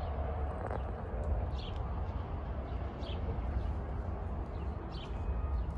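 Chickens dust bathing, scratching and shuffling loose soil and feathers. Short high bird chirps come about every one and a half seconds over a steady low rumble.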